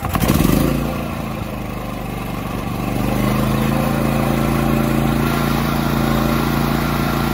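Champion 7000-watt digital hybrid inverter generator's gasoline engine electric-started with the choke set: the starter cranks briefly and the engine catches within the first second, starting easily. It then runs steadily, growing louder about three seconds in and holding there.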